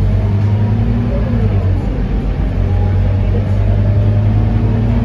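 Scania K230UB city bus's five-cylinder diesel engine running under way, heard from inside the passenger cabin as a steady low drone with road noise.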